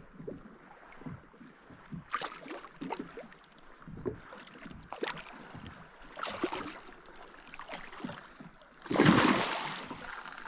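A big pike thrashing at the surface beside a kayak: a loud splash about nine seconds in that tails off. Before it come scattered short, quieter water sloshes.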